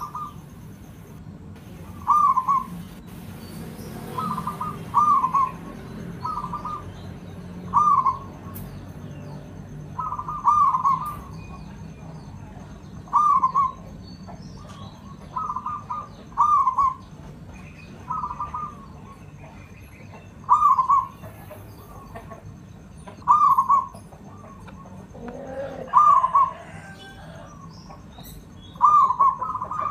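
Zebra dove (Javanese perkutut) singing its cooing song: a short phrase of a few quick notes, repeated about every two to three seconds, some phrases doubled.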